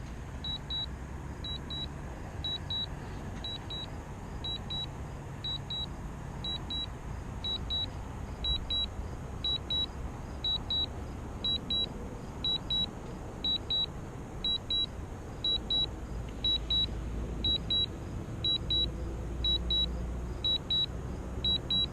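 Drone remote controller sounding its low-battery alarm: a high double beep repeating about once a second, over a low rumble.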